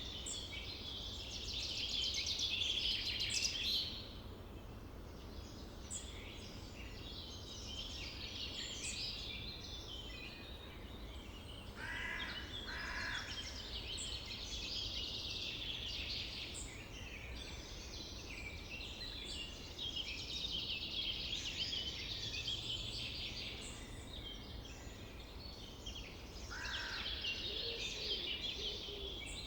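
Summer forest ambience: many small birds singing and chirping over one another without pause, over a low steady background rumble. Two harsher, lower calls stand out about twelve seconds in, and another near the end.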